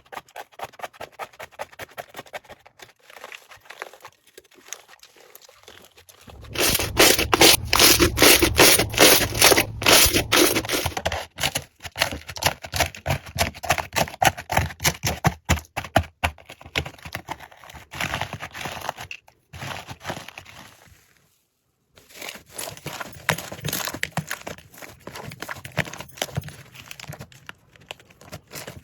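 Slime being squished and pressed, giving dense runs of small crackling clicks and pops. It grows much louder about six seconds in and drops out briefly about three-quarters of the way through.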